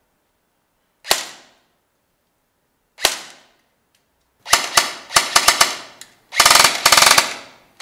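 G&P M4 Very Short Barrel Rifle airsoft electric gun firing: two single shots about two seconds apart, then a quick run of single shots, then a full-auto burst of about a second near the end.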